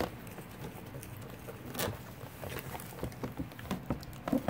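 Toy packaging being handled and opened: scattered small clicks and taps from a cardboard box and its clear plastic figurine tray, with a louder tap just under two seconds in and another near the end.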